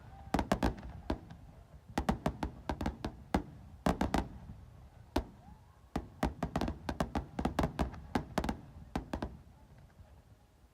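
Aerial firework shells bursting in quick, irregular clusters of sharp bangs. The bursts die away about a second before the end.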